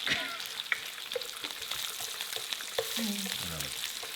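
Burger patties sizzling and crackling on a hot indoor grill, a steady frying hiss with scattered small pops.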